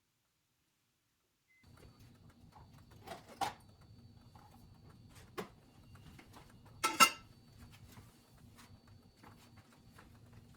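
Light knocks and clicks of cookware being handled, a few scattered ones and a louder pair about seven seconds in, over a faint steady hum. The first second or so is dead silent.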